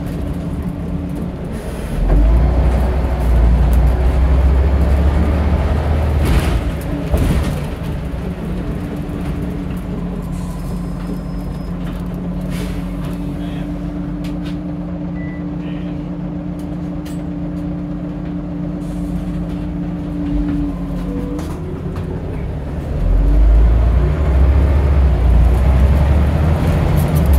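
Scania Omnidekka bus's 9.3-litre DC9 diesel engine: it runs hard with a heavy low rumble for about five seconds, a short burst of air hiss comes near the middle of that, then the engine settles to a steady idle hum for about twelve seconds before rumbling loudly under load again near the end.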